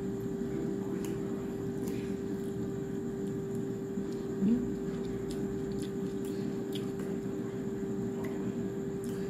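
Air fryer running: a steady hum with a fan whir. Light clicks of a fork on a plate and chewing are scattered over it, and there is a brief rising sound about halfway through.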